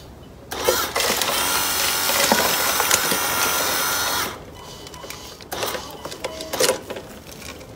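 Electric motors and gears of an RC excavator running steadily for about three and a half seconds as the arm swings and works. After that it is quieter, with soil falling from the bucket into a toy dump truck's bed and a few short knocks.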